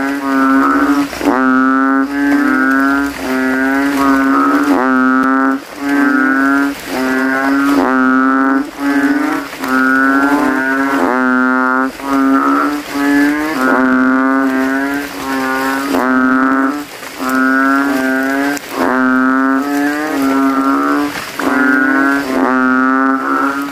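Kintel frogs (Kaloula narrow-mouthed frogs) calling with inflated throats: loud, deep, lowing calls in quick succession. Each call lasts under a second and starts with a quick upward swoop, as several males compete to be the loudest.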